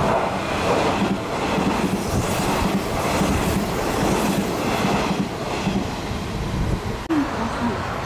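Hanshin 1000 series electric multiple unit running through the station without stopping, at speed and close by. Its wheels on the rails make a loud rushing noise with a clickety-clack that swells as each bogie goes by.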